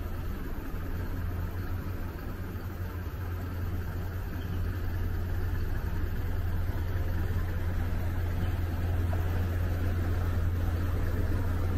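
Road traffic going by: a steady rumble of vehicles that grows a little louder in the second half.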